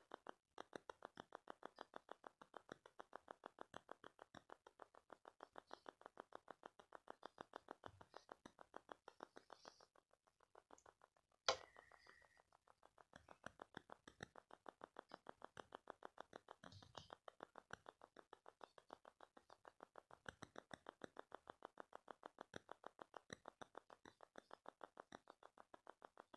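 Near silence: faint room tone with a rapid, even pulsing of about five beats a second, and a single brief click about eleven and a half seconds in.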